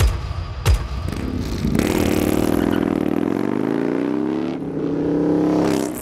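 Intro sound effects: two deep impact hits about two-thirds of a second apart, then a motorcycle engine revving, its pitch climbing and dipping over several seconds.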